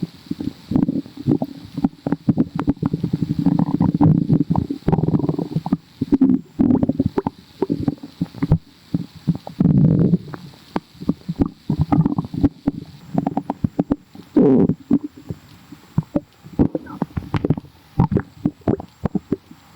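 Human stomach growling and gurgling, very bubbly: a constant run of quick pops and crackles, with longer low gurgles swelling up every few seconds.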